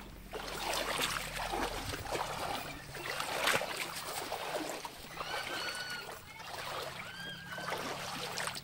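Shallow river water splashing and sloshing around the legs of a man wading, with the swish of a wet cast net being gathered for a throw. Two short, high chirping calls come a little past the middle.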